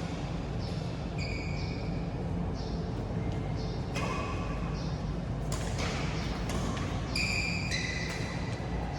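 Badminton play in a hall: sharp racket hits on the shuttlecock, three in the second half about a second and a half apart, with short high squeaks of shoes on the court floor over a steady hall hum.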